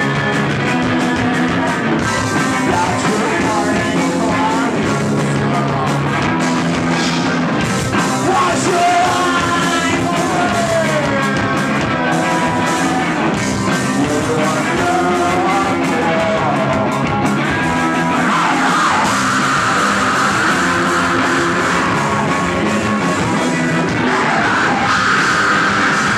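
Rock band playing live and loud, with a bending melody line over bass and guitar for most of the time. About two-thirds of the way through it gives way to a denser, rougher wash of distorted guitar.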